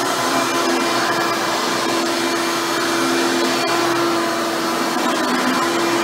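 Hoover Turbopower 4000 upright vacuum cleaner running steadily on carpet, its motor hum shifting slightly in pitch as the head is pushed back and forth.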